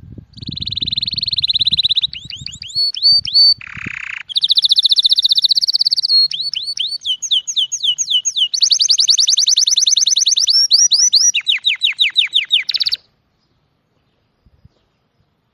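A songbird singing a long, varied song of fast trills and rapidly repeated whistled notes that changes pattern every second or two, with one short harsh note about four seconds in. The song cuts off suddenly near the end.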